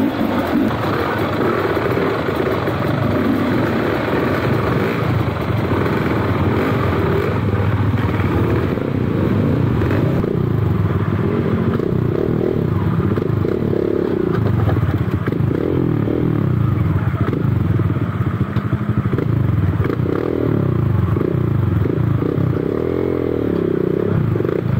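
Dirt bike engine running hard while riding, its pitch rising and falling over and over as the throttle is worked and the gears change.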